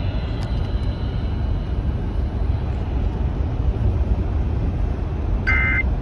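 Weather radio channel with a steady low rumble and hiss once the voice message has ended. Near the end comes a short warbling two-tone data burst: the EAS/SAME End of Message code that closes the alert, the first of a series of identical bursts about a second apart.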